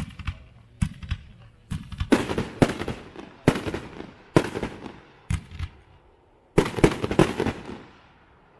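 Hot Fireworks 'Blaster Master' 20-shot consumer firework cake firing: a run of sharp bangs as its shots launch and burst, coming singly and in quick clusters, ending about eight seconds in.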